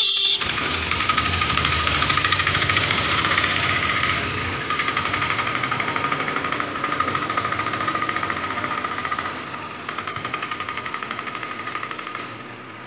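Auto-rickshaw engine running steadily with a rapid, even pulse and a steady whine over it. It fades somewhat in steps through the second half.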